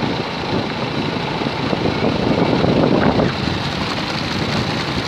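Steady rumble of a vehicle driving over a cobblestone street, heard from on board: tyre and road noise mixed with the engine, swelling slightly about two to three seconds in.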